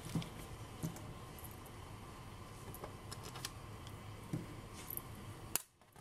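Faint scattered clicks and taps of a precision screwdriver driving the small screws back into a mid-2012 MacBook Pro's aluminium bottom case. The sound cuts out suddenly near the end.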